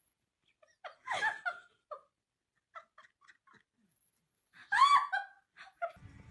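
A person giggling in short, high bursts, about a second in and again, loudest, near the end.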